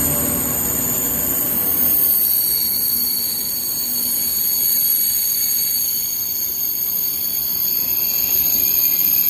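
KTX high-speed train rolling slowly alongside the platform, its rumble fading, with a steady high-pitched whine.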